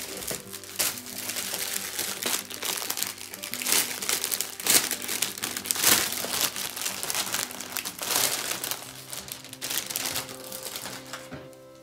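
Thin clear plastic bag crinkling and rustling in irregular bursts as a folded T-shirt is pulled out of it and the bag is handled, dying down near the end. Soft background music plays underneath.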